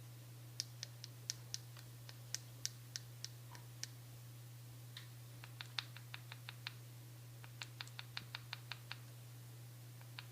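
Pet parrot tapping its beak against a hard surface: sharp taps in three quick runs of several taps a second, with short pauses between. A steady low hum runs underneath.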